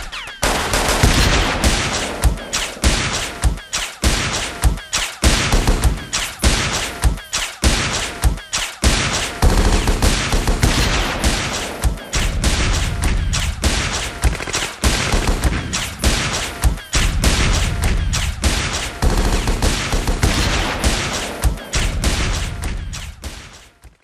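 Sustained automatic gunfire: rapid shot after shot with a heavy low boom, fading out near the end.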